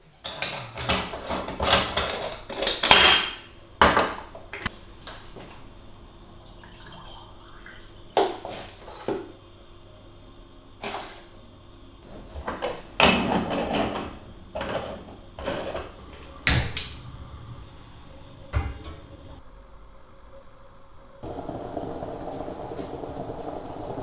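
Aluminium stovetop moka pot being handled: a string of sharp metal clicks, knocks and clatters as its parts are twisted apart and set down on the counter. About three seconds before the end a steady hiss begins, a gas burner lit under the pot.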